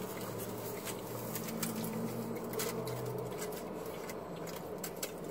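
Close chewing and mouth sounds of a man eating a soft taco, with many light scattered ticks.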